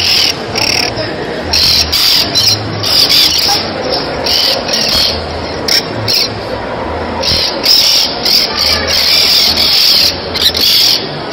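A large flock of starlings in a murmuration: a dense mass of chattering calls and rushing wings, surging and easing irregularly.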